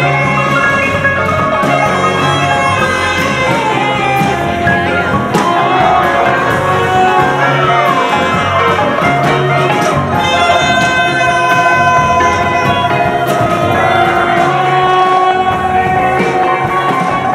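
Live folk-rock band playing a song, with several voices singing together over electric guitars, banjo and drums.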